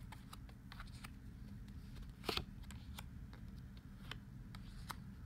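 Tarot cards being picked up and laid down on a spread on a table: scattered light taps and slides of card on card, with one sharper snap about two seconds in.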